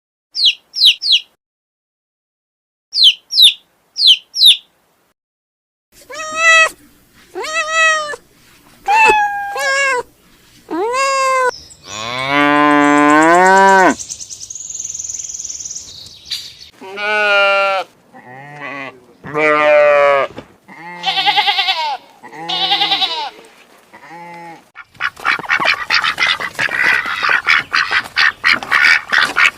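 A run of farm-animal calls, one after another. Short high bird chirps come first, then a string of separate pitched calls, including a long, loud cow moo about twelve seconds in. The last few seconds are a dense, rapid clatter of calls.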